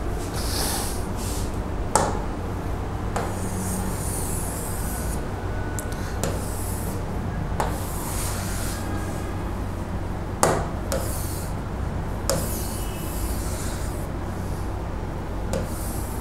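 A pen writing on an interactive smartboard screen: short rubbing strokes lasting about a second each, with sharp taps as the pen touches down. The loudest taps come about 2 and 10 seconds in. A steady low hum runs underneath.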